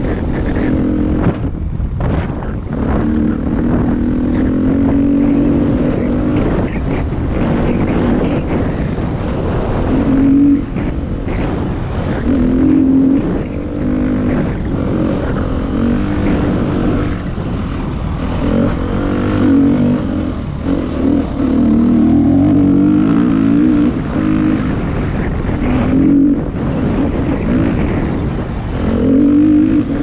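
Husqvarna dirt bike engine running under way, its pitch rising and falling as the throttle is worked, with a few brief drops where the throttle is rolled off.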